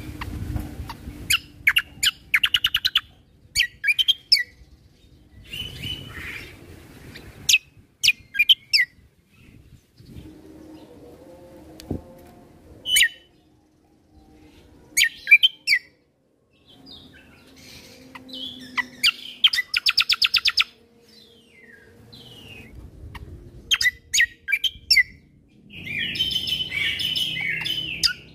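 Kecial kombo (cucak kombo) singing in short bursts of rapid, trilling notes with pauses between phrases, ending in a longer, denser burst.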